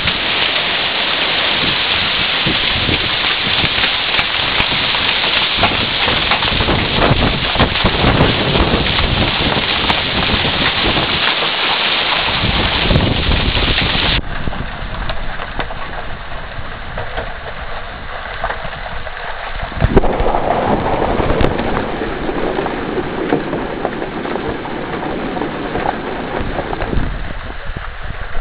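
Hail and heavy rain pelting a concrete driveway: a dense, loud hiss packed with sharp hits. About halfway through, the upper hiss drops off suddenly, and a few seconds later comes a louder surge.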